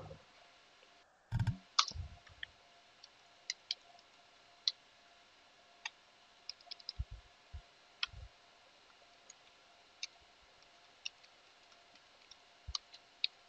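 Computer keyboard keystrokes: scattered single key clicks at irregular spacing, with a few duller low knocks about one and a half to two seconds in and again around seven to eight seconds in.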